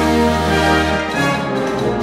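A brass band playing full sustained chords over a deep bass line, the cornets to the fore. A new chord comes in at the start and the harmony shifts about halfway through.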